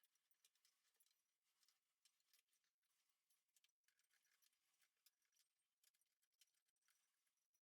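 Near silence: room tone with very faint scattered ticks.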